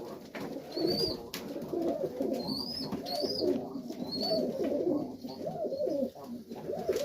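Many domestic pigeons cooing in a loft, several birds overlapping without a break. A few short, high rising chirps sound between about one and four seconds in.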